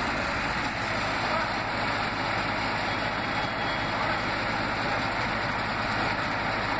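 L&T-Komatsu PC71 mini excavator's diesel engine running steadily under load while the machine works its tracks and hydraulics to unload itself off a flatbed truck.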